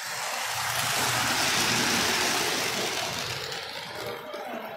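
Model train running past close by on the layout's track: a noise of wheels and motor with a low hum beneath, building to a peak about two seconds in and then fading.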